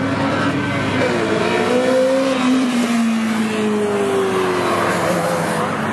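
Sports car engines revving and accelerating, several engine notes rising and falling over one another.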